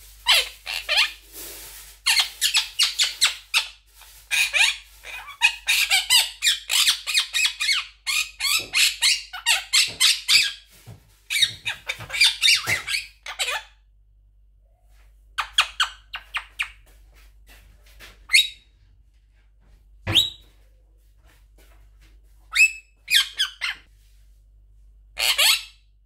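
Blue monk parakeet (Quaker parrot) chattering and squawking in shrill rapid bursts, mixing in mimicked human words such as "baby" and "come here". A long run of fast chatter fills the first half, then it breaks into shorter separate calls.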